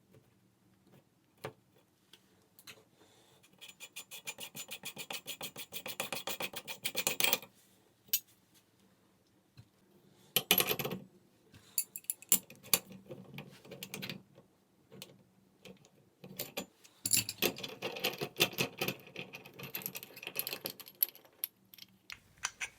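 Hand-tool work on a Pfister tub and shower diverter valve stem. A run of fast, even ratchet clicks lasts about four seconds, then come metallic scrapes and knocks as the stem is worked loose and drawn out.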